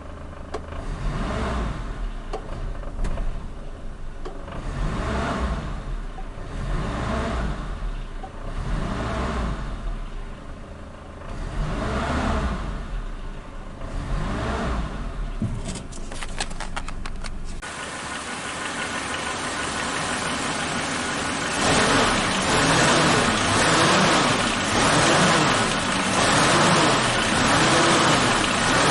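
Suzuki Katana engine being revved again and again, its pitch rising and falling about every two seconds. About two-thirds of the way in it changes abruptly to a louder, steadier engine sound with a quicker wavering pitch.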